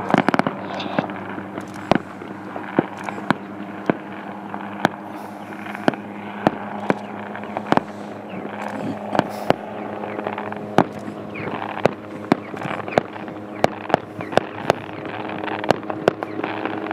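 A helicopter's steady rotor and engine hum, overlaid by irregular sharp cracks and pops, a few a second, from airborne display pyrotechnics burning and bursting around it.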